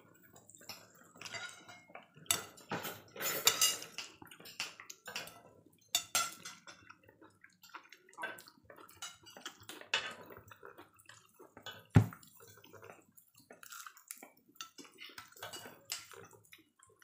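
Metal tongs and spoons clinking and scraping against a tabletop grill plate and dishes, in scattered irregular taps, with one sharp clack about twelve seconds in.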